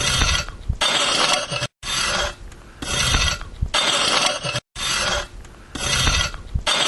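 Garden hoe scraping across the top of the soil while weeding, in repeated strokes about once a second.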